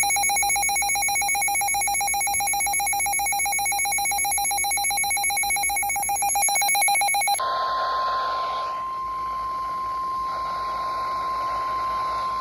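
A weather radio's electronic alert alarm, a rapidly pulsing high beep, sounds for about seven seconds. It then gives way to a single steady tone near 1 kHz, the NOAA Weather Radio warning alarm tone that comes before a warning message.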